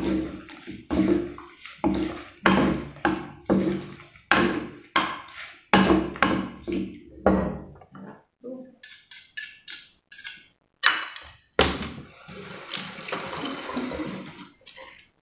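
Wooden pestle pounding cucumber salad in a heavy clay mortar, about two wet knocks a second, each with a short low ring from the mortar. The pounding stops about eight seconds in. A few lighter knocks and a stretch of rustling hiss follow near the end.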